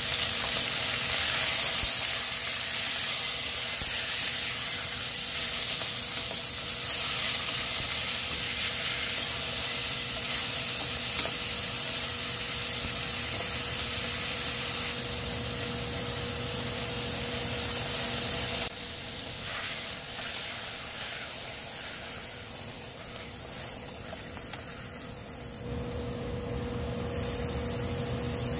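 Chicken drumsticks, garlic and resinous polypore mushroom slices sizzling in a stainless steel pot, stirred and scraped with a wooden spatula. The sizzle drops in level about two-thirds of the way through, and a steady low hum underneath grows louder near the end.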